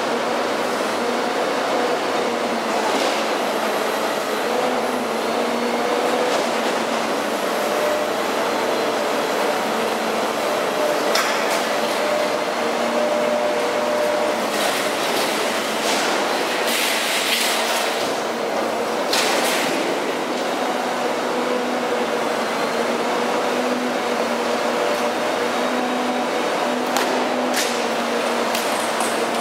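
A cutting torch hissing steadily as it cuts through a machine's metal during its dismantling, with a faint on-and-off hum and a few brief louder hisses.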